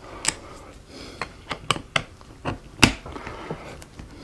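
Plastic parts of a Flow Hive frame clicking and snapping as they are pressed and worked into their grooves during reassembly: about ten sharp clicks, the loudest just under three seconds in.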